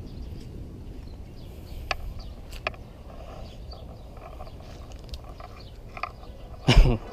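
A gasoline-soaked cardboard box burning, with a few sharp crackles over a low steady rumble, and one loud, short thump shortly before the end.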